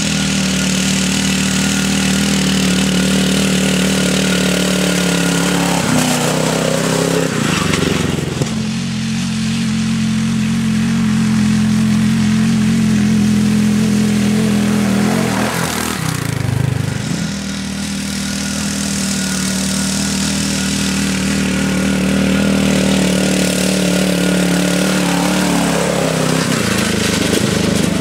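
Ride-on lawn mower engines running hard as the mowers race uphill. The loud, steady engine note shifts twice, about a quarter and about three fifths of the way through.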